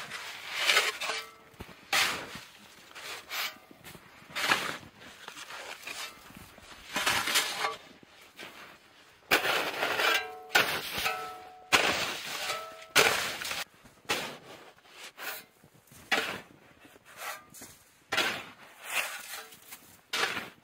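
Metal snow shovel digging into deep, firm snow: repeated crunching, scraping strokes every second or two, and on several strokes the metal blade rings briefly.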